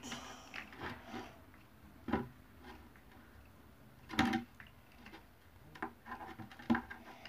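A few scattered light knocks and rubbing sounds of wooden pieces being handled on a wooden board, the loudest knock about four seconds in, with quiet between.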